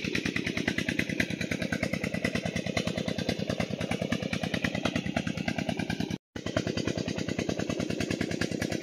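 Tubewell engine running steadily with a rapid, even beat. The sound drops out for an instant about six seconds in.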